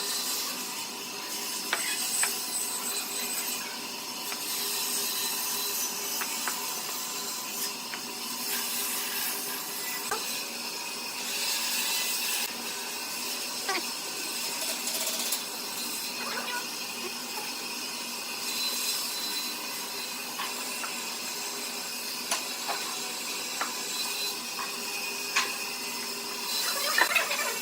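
Hand tools working wood: continuous scraping and rubbing on wood, with scattered sharp knocks and clicks.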